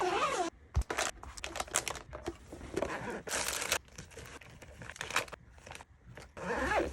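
Crinkling and rustling of a cat backpack's material being handled, in short irregular bursts, with a cat meowing briefly at the start and again near the end.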